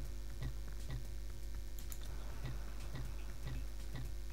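Steady ticking, about two ticks a second, over a low steady hum.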